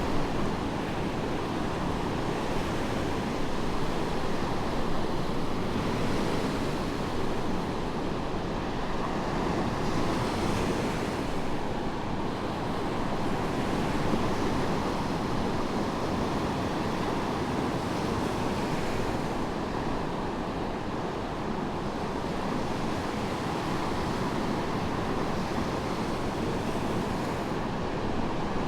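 Medium waves breaking and washing onto a sandy beach: continuous surf that swells and eases every few seconds.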